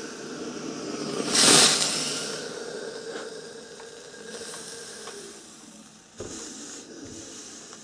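Rowenta Steamforce DW9230 steam iron letting off a shot of steam: a loud hiss about one and a half seconds in that slowly fades. About six seconds in, the iron knocks down onto the ironing board.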